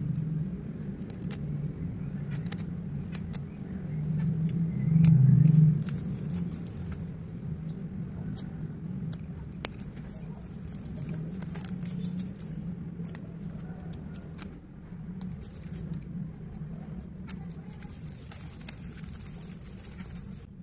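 Small clicks and crackles of a craft knife cutting and peeling plastic binding tape off a ficus bonsai's trunk, over a steady low hum that swells loudly about four to six seconds in.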